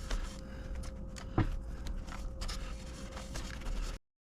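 Scraping and rustling of potting mix being spread over seeds in starter trays by hand, with one sharper knock about a second and a half in, over a faint steady hum; the sound cuts off abruptly near the end.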